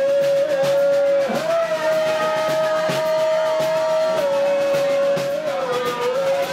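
Live rock band playing loud through a bar PA, with a long held high note that slides up into place, holds and bends up and down a few times over a steady drum beat.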